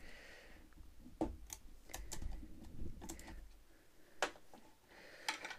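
Irregular small clicks and taps of a Phillips screwdriver and the plastic parts of a Thetford C250 toilet cassette's blade mechanism as the screw that holds the blade is undone and taken out.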